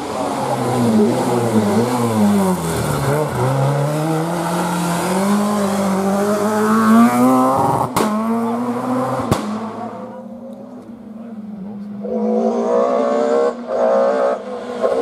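Rally car engine dropping in revs as it brakes into a hairpin, then climbing steadily as it accelerates out, with two sharp cracks about a second apart. Near the end a second rally car, a BMW E30, approaches with its engine rising and falling as it works through the gears.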